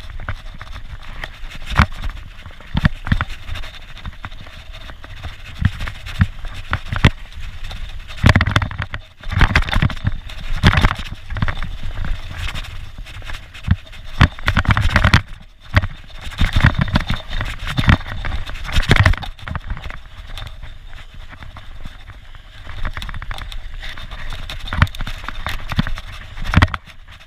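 Mountain bike ridden fast down a dirt trail: tyres rolling and crunching over the ground, with frequent irregular clatters and knocks as the bike hits bumps, louder in several rough stretches.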